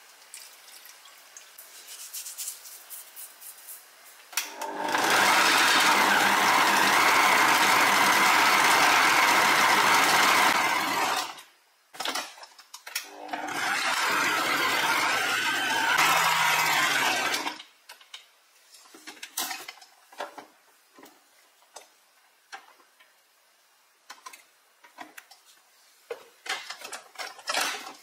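Kenwood stand mixer driving its food processor attachment, chopping frozen butter, flour and cold water into puff pastry dough: a loud, steady run of about six seconds, a brief pulse, then a second run of about four seconds. Afterwards only a few light clicks and knocks.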